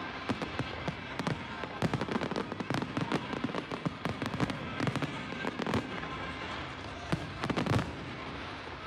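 Fireworks display: rapid, irregular bangs and crackles from aerial shells bursting, several a second, easing off slightly near the end.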